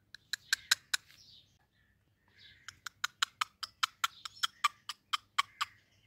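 Indian ringneck parrot clicking: a short run of sharp clicks, a pause, then a faster steady run of about five clicks a second.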